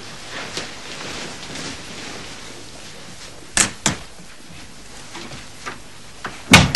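A panelled door being pushed shut, with two sharp knocks about three and a half seconds in and a louder knock near the end.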